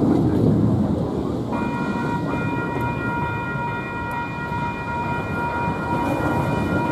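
Distant Union Pacific SD60M locomotive sounding its multi-chime air horn, several notes together, held from about a second and a half in, over a steady low rumble.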